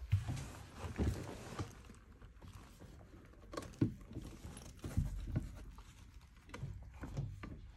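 Irregular knocks, bumps and light clatter as a plastic fold-out tray table is handled, pulled out of a train seat's armrest and unfolded, with handling bumps against the seat.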